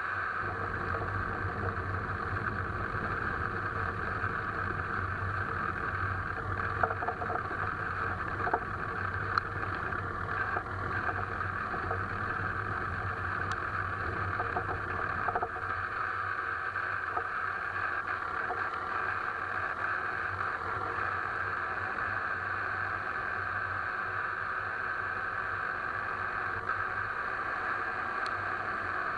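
Alfa Romeo 159 on the move, with steady road and tyre noise and a few short sharp knocks in the first half: the suspension knock the car is being checked for.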